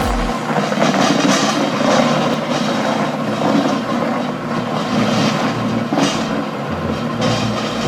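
Heavy machinery running with a steady, dense mechanical din.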